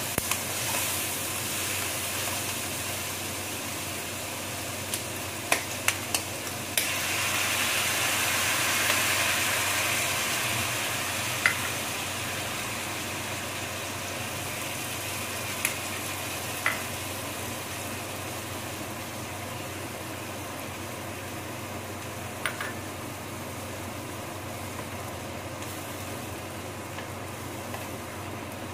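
Pork strips sizzling as they fry in a pan, stirred with a wooden spatula that knocks against the pan now and then. The sizzle swells louder for a few seconds about a quarter of the way in, then settles to a steady hiss.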